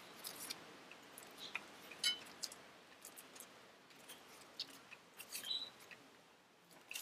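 Faint, irregular crinkles and small clicks of plastic bubble wrap being dabbed onto paper cutouts by hand, with light paper handling.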